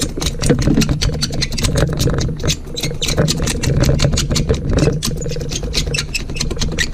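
Razor blade scraping cured pit filler off windshield glass in quick, rapid strokes, a dense run of scratchy clicks that thins out near the end, over a steady low hum.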